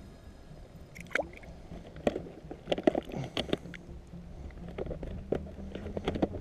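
Small irregular splashes and sloshes of lake water, with light clicks and knocks, as a small pike is handled and unhooked in a landing net at the water's surface; the splashes come in a cluster from about a second in until near the end.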